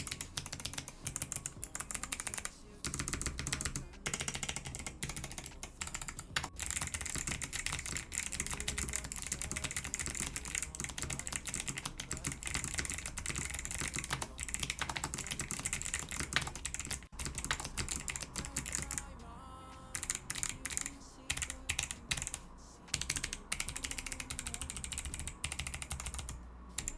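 Mechanical keyboard with Kailh Arctic Fox clicky switches being typed on quickly: a dense run of sharp clicks, thinning briefly about two-thirds of the way through, over background music.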